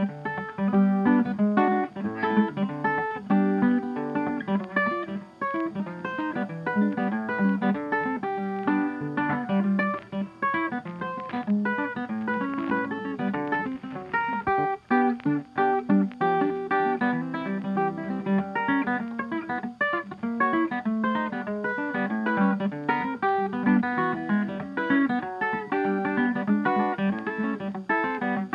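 Background music: quickly plucked acoustic guitar playing a busy run of notes.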